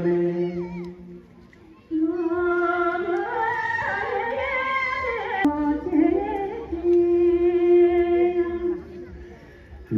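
Singing with long held notes, the song to which the group dances. It drops away briefly about a second in and again near the end, and jumps abruptly about halfway through.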